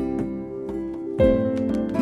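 Background music: plucked-string, harp-like notes over a soft beat, with a new note struck about a second in.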